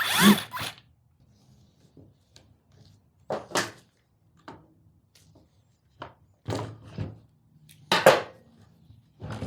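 Short, separate knocks and clunks of hand tools against the parts of a Stihl MS211C chainsaw as a stuck part is worked loose, about six of them spread out with pauses in between.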